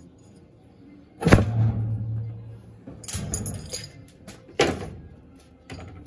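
Two sharp knocks about three seconds apart, with clattering between them: washing-machine parts being handled and set down. The first knock is followed by a short low ring.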